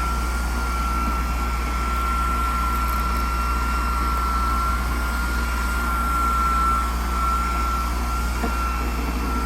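A blower motor running steadily: a constant high whine over a low hum and a wash of rushing air, with no change in speed.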